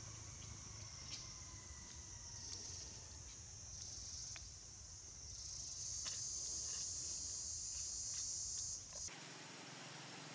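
Chorus of insects buzzing in a steady high-pitched drone, swelling louder about halfway through, then cutting off abruptly near the end.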